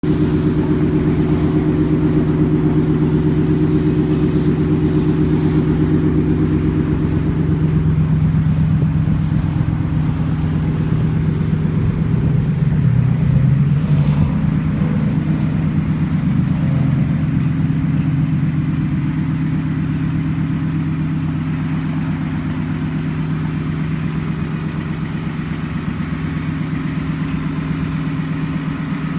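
2018 Ford F-150 running through a Gibson Dual Extreme cat-back exhaust, a steady idle exhaust note. The tone changes slightly about eight seconds in.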